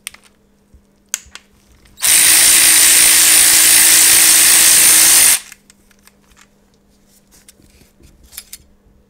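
A handheld power tool runs in one steady burst of about three seconds, starting about two seconds in and cutting off sharply, as it works a fastener off the engine. A few light clicks and clanks of metal sound before and after it.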